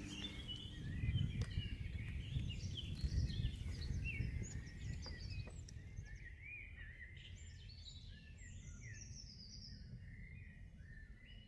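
Small songbirds chirping and singing, many short calls and trills overlapping, with a low rumble underneath that is stronger in the first half and then dies down.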